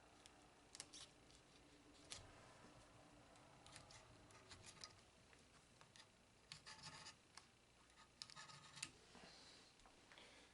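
Near silence with faint handling noises: scattered light clicks, scrapes and a few short rattles.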